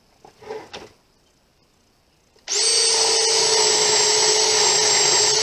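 Cordless drill running steadily at full speed, boring a half-inch spade bit through a wooden board. It starts about two and a half seconds in with a constant whine.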